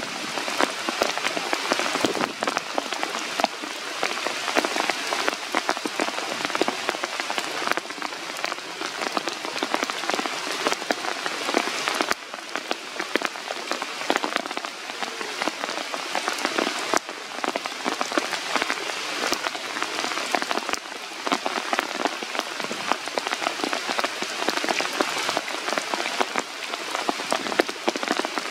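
Steady rain falling through a forest canopy, with many separate drop hits close by.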